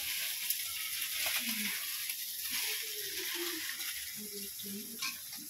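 Steady sizzling hiss of food frying in hot oil, with faint voices in the background.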